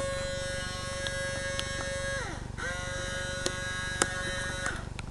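RCA CMR300 VHS camcorder's tape mechanism giving a steady, weird buzz that sags in pitch and cuts out a little past two seconds in, then starts again with a few clicks and stops near the end. The owner thinks something is stuck or the drive belt has broken or fallen off.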